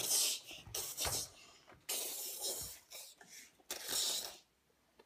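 Rustling and scraping from a child handling toys and plastic items on a table, in four or five short bursts with gaps between them.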